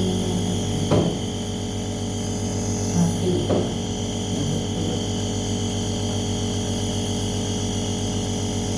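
Steady low electrical hum of a running machine, with a couple of short knocks about one and three and a half seconds in.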